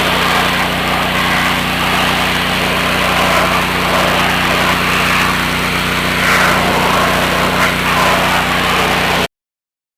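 Honda GC single-cylinder engine of a Simpson MegaShot 3100 PSI gas pressure washer running steadily. It cuts off abruptly about nine seconds in.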